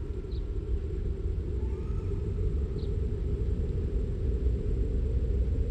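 Low, steady rumbling drone with no beat, part of an ambient soundtrack, with a faint short high chirp twice.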